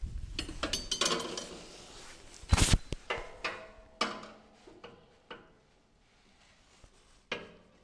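Metal clinking and knocking as a long bar and the drive belt are worked around the Exmark mower deck's pulleys and belt tensioner, with a quick run of clicks at first, the loudest clank about two and a half seconds in, and a few scattered knocks after.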